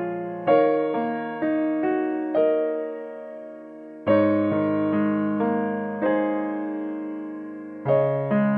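Background music: slow solo electric piano playing chords, each struck chord ringing and fading before the next.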